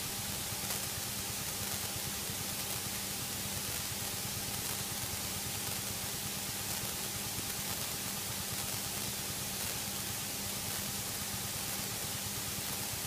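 Steady hiss of an aircraft headset intercom and radio audio feed, with a faint steady low hum underneath.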